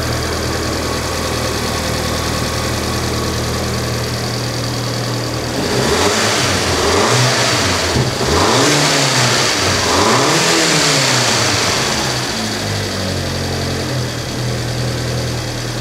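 VW Golf 5 GTI's 2.0 turbo four-cylinder (AXX) engine idling, running smoothly after its faulty timing chain tensioner was replaced. About six seconds in it is revved up and down a few times, then settles back to idle.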